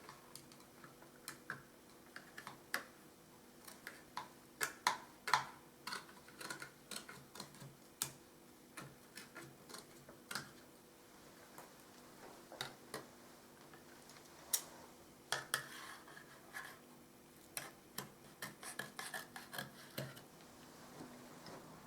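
Irregular light clicks and taps of a decorating spatula and trimming blade working wallpaper tight against the edge of an electrical switch plate as the excess is trimmed off.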